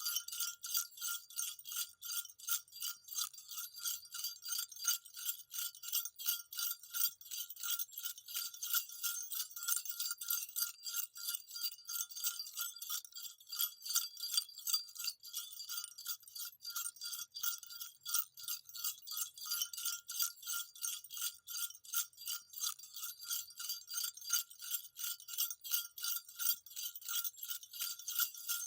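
Small jingle bells shaken steadily and continuously, a rapid, even jingling with a bright metallic ring.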